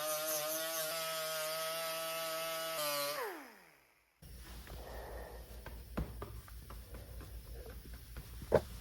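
An electric power tool, such as a sander, running at a steady pitch. It is switched off about three seconds in and winds down with falling pitch to silence. After that there is a low hum with scattered light clicks and a sharper click near the end.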